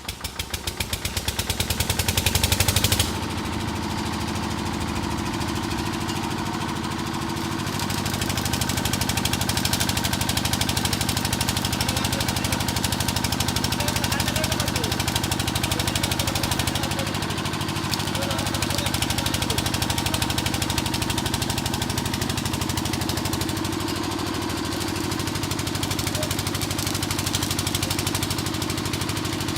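Stationary engine turned over by its crank handle: its beats speed up and grow louder for about three seconds, then it catches and runs steadily, the load swelling and easing a little.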